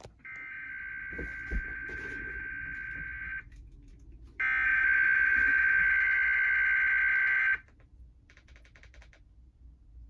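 Emergency Alert System SAME header data bursts played through a TV: two buzzy, warbling digital tone bursts of about three seconds each, with the second louder than the first. They mark the start of a Required Weekly Test alert.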